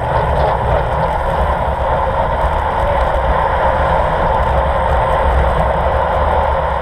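Steady rush of wind over the microphone of a camera on a road bike moving at speed, with a low rumble and the hum of tyres rolling on the road.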